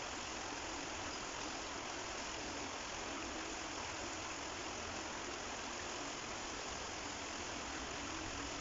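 Shallow stream water flowing: a steady, even hiss of running water.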